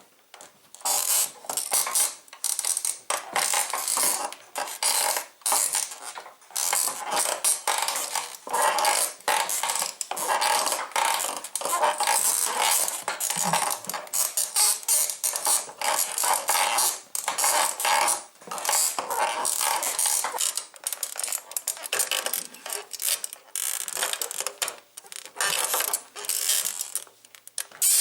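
Springs of a 1970s sprung bicycle saddle squeaking over and over as it is ridden and bounced, about one to two squeaks a second.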